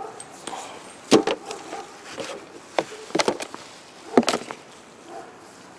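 Handling noise from lifting a riflescope out of its box packaging: a handful of short rustles and knocks, roughly a second apart.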